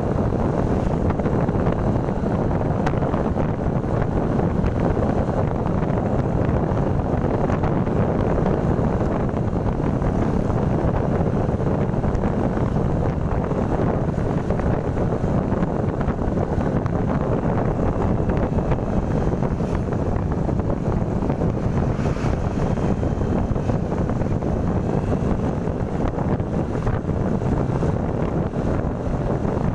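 Steady wind rushing over the microphone of a moving motorcycle, with road and engine noise underneath.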